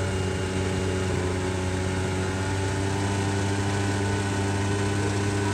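A small motor running steadily at an even pitch, blowing air into a fire burning inside a steel drum, with a constant rushing noise from the forced-air fire as it throws sparks out the top.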